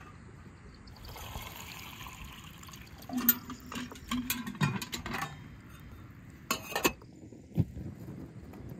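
Water poured from a metal pot into a fire-heated samovar, filling the water jacket around its central chimney, for about two seconds. A run of sharp knocks and clinks follows from about three seconds in, with two louder ones near the end.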